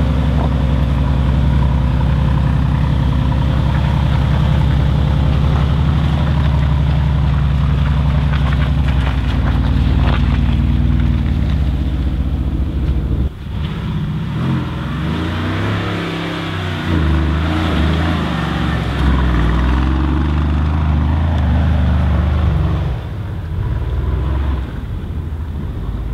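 Mercedes-Benz G500 4x4²'s twin-turbo V8 running at steady revs, then after a sudden change about 13 seconds in, its revs rising and falling as it drives over rough ground.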